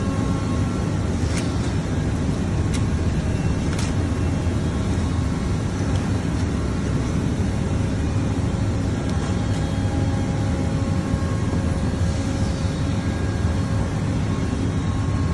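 Steady low rumble of factory background noise, with a few sharp clicks in the first four seconds.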